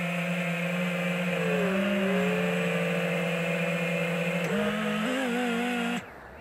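FPV quadcopter's brushless motors whining steadily, heard from the onboard camera. The pitch steps up about four and a half seconds in as the throttle is raised, and the sound cuts off abruptly near the end.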